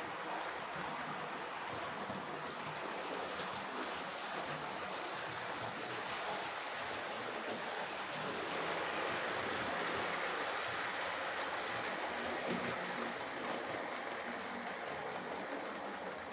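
Vintage 00-scale model trains running on the layout's track: a steady whirring rattle of metal wheels on rails and small electric motors, a little louder about halfway through.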